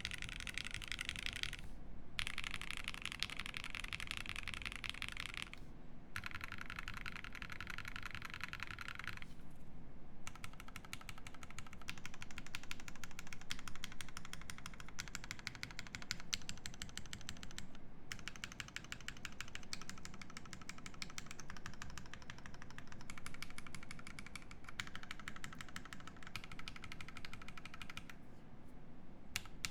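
Fast typing on a Prophet mechanical keyboard with lubed FFFF switches in Cherry top housings, a nylon plate and GMK keycaps: a dense, steady run of key clacks.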